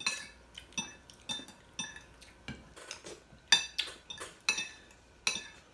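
Metal cutlery clinking and scraping against ceramic plates during a meal: a string of short, sharp, ringing clinks at an irregular pace of about two or three a second.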